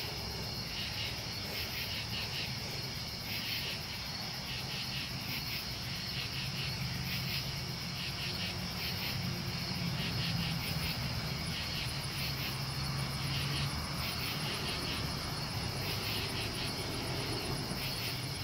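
A chorus of crickets chirping in a steady, pulsing rhythm, with a low hum underneath.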